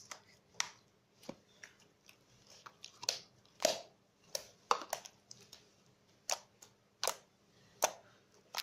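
Slime being squeezed and pressed by hand, giving a run of irregular wet clicks and small pops, about one or two a second.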